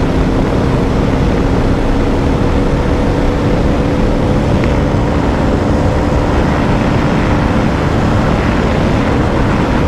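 Bajaj Dominar 400's single-cylinder engine pulling hard at high revs in fifth gear, a steady drone held at near-constant pitch, under heavy wind rush from riding at high speed.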